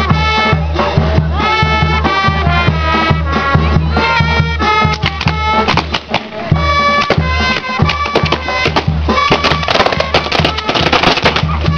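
Traditional folk-style music: a stepping melody over a steady bass beat. A dense run of sharp clicks comes in about nine seconds in.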